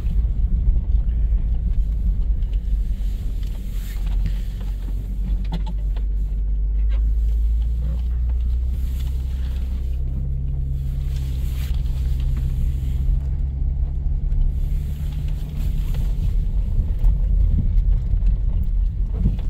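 Dodge Grand Caravan 3.3-litre V6 running under load as the van is driven, heard from inside the cabin, with the engine note settling into a steady tone about halfway through. The automatic transmission is pulling through the gears, which the owner calls strong.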